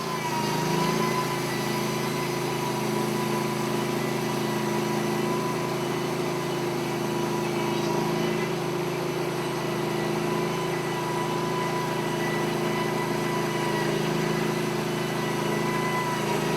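Norwood LumberMate Pro MX34 portable band sawmill's engine running steadily at full throttle as the band blade is pushed through a cut, holding one even pitch throughout. The sound stops abruptly at the very end.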